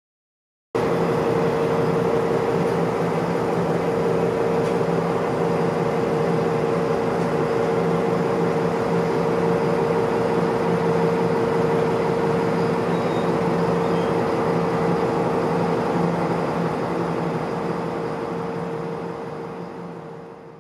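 A boat's diesel engine running steadily, a constant drone with a strong hum, starting abruptly about a second in and fading out near the end.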